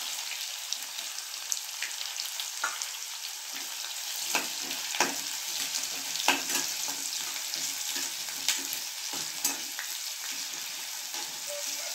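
Sliced onions sizzling in hot oil in a nonstick kadai as they start to sauté, stirred with a slotted spatula that scrapes and knocks against the pan every second or so.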